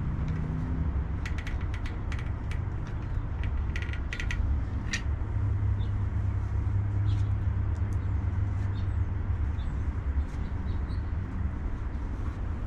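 Caulking gun squeezed to lay clear silicone around a window frame: several quick clusters of clicks and creaks from the trigger and plunger in the first few seconds, over a steady low rumble.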